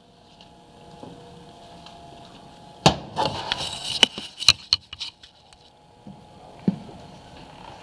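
Handling noise and parts and tools clattering and knocking on a workbench: a cluster of sharp knocks from about three to five seconds in, then one more knock, over a faint steady hum.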